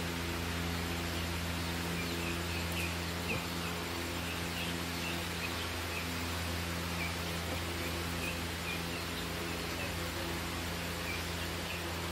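Chicks peeping in short high chirps, about one or two a second, starting about two seconds in, over a steady low mechanical hum.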